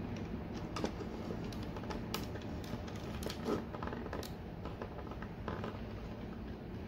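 Light, irregular clicks and taps of hard plastic as a Transformers Masterpiece action figure's wing panels and legs are moved and adjusted by hand.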